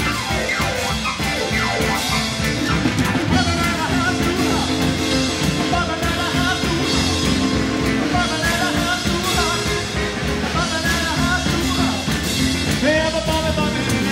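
Live rock and roll played by a band led on piano, with drums. A man sings over it from a few seconds in.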